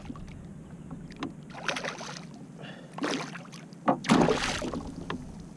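A hooked fish splashing at the surface right beside a kayak, in three short bursts, the last and loudest about four seconds in, with a few light knocks in between.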